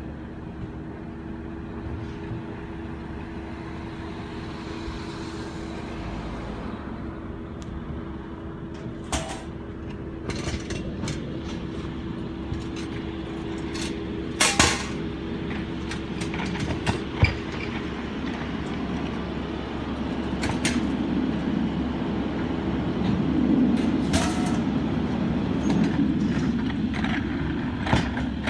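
Garbage truck's diesel engine running steadily, with sharp metallic clanks now and then; about two-thirds of the way in the engine grows louder and heavier, as if working under load.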